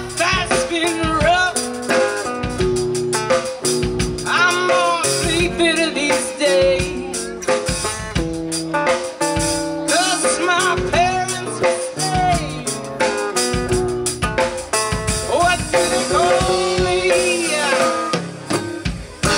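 A woman singing over a strummed acoustic guitar and a drum kit, played live.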